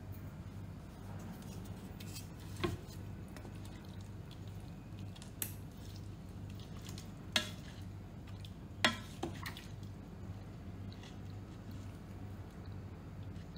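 A wooden spatula turns pork trotters in braising liquid in a multicooker's inner pot. There are soft wet stirring sounds and about five sharp knocks of the spatula against the pot, over a low steady hum.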